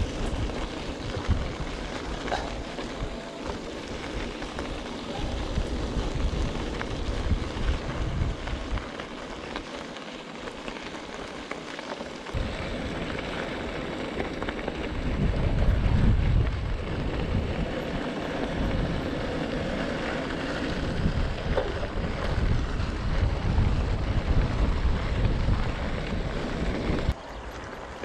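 Wind buffeting the microphone over tyres rolling on a gravel track on a moving e-bike, a gusty rumble that rises and falls. The noise drops suddenly near the end.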